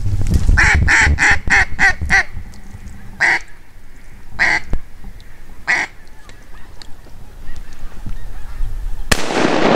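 Mallard duck call blown by a hunter: a quick run of about seven quacks, then three single quacks spaced a little over a second apart. Near the end a sudden sharp sound with a rushing noise trailing off.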